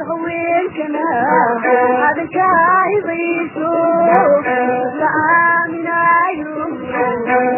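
Somali song: a voice singing a gliding, wavering melody over instrumental accompaniment.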